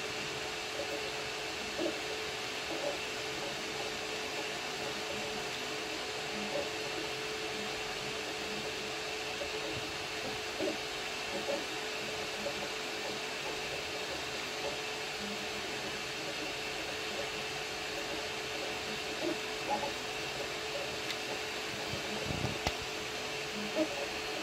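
Anycubic Kobra Max 3D printer running a print: a steady whir of its cooling fans with a steady hum, broken by short irregular chirps from the stepper motors as the print head moves.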